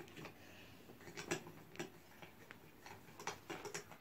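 Utensils clicking and knocking against mixing bowls as slime mixture is stirred: faint, irregular light clicks, several about a second to two seconds in and a cluster near the end.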